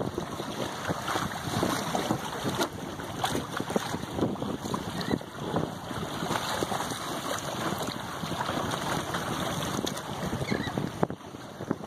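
Wind buffeting the microphone and choppy water splashing along the hull of a Hobie Mirage Tandem Island sailing kayak under sail, in uneven gusts.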